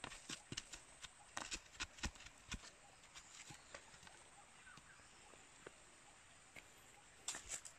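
Scattered light taps and crackles of dry bamboo leaves and twigs being stirred by a stick, thick during the first couple of seconds, then near quiet, with a few more crackles near the end.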